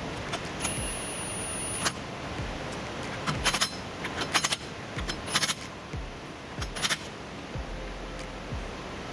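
Metal tools and hardware clinking in several short bursts of sharp clicks, over a steady background hiss, as parts are handled during reassembly of the hub and brake.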